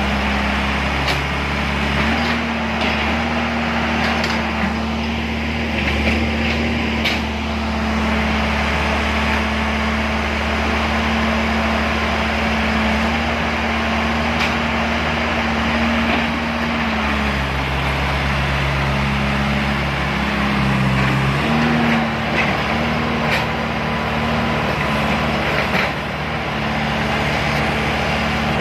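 Heavy diesel machinery engine running, its revs stepping up about two seconds in, falling back about seventeen seconds in and rising again a few seconds later, with a few light knocks.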